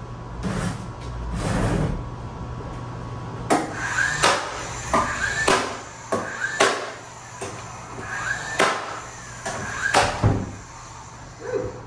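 A series of sharp knocks and clatters, about one a second, some with a short squeak after them, like household doors or cupboards being opened and shut.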